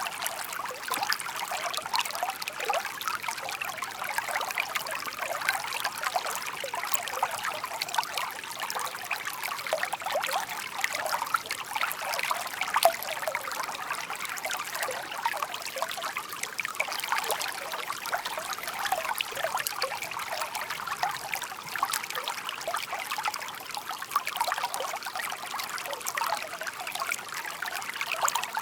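Shallow brook burbling and trickling over stones, a steady babble of small splashes and gurgles.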